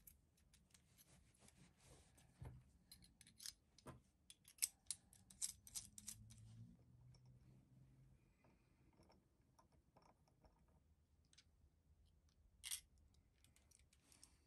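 Faint clicking and scratching of a small drill bit twisted by hand, cutting a missing hole through a used carburettor gasket. The ticks come thickly for the first six seconds or so, then thin out, with one louder click near the end.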